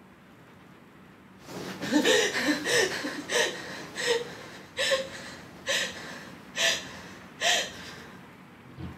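A woman crying in sharp, gasping sobs: about nine short gasps in a row, a little under a second apart, beginning about a second and a half in after a quiet pause.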